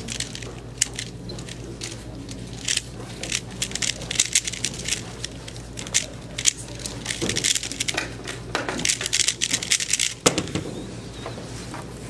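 3x3 speedcube being turned fast by hand: rapid runs of plastic clicking and clacking as the layers snap round, with a sharp knock about ten seconds in as the solve ends.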